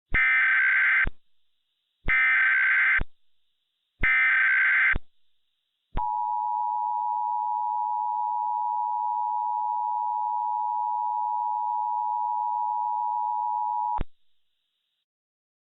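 Mock Emergency Alert System tones: three one-second bursts of SAME header data chirps about a second apart, then the two-tone EAS attention signal held steady for about eight seconds and cut off abruptly.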